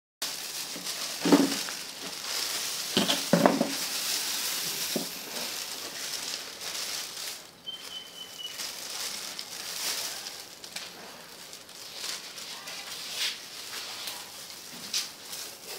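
Thin plastic bag crinkling and rustling as fresh herbs are pulled out of it into a plastic basket, with a few soft knocks in the first four seconds.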